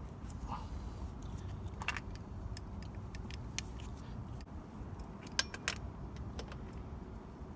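A few sharp metallic clinks of tools and metal parts being handled while the oil drain plug is refitted. The loudest pair comes about five and a half seconds in, over a low steady background rumble.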